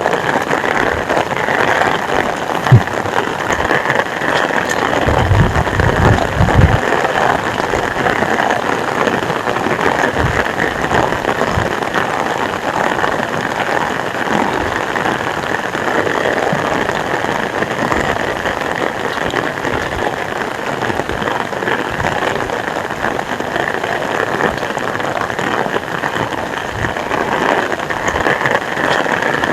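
Heavy rain falling steadily, a dense hiss. There is one sharp knock about three seconds in, and a brief low rumble a few seconds later.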